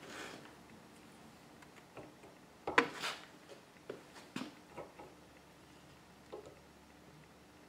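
Scattered light metal clicks and knocks as the worm shaft and valve assembly of a Ford power steering gearbox is handled and worked out of its housing by hand. The sharpest knock comes a little under three seconds in, with a few softer clicks after it.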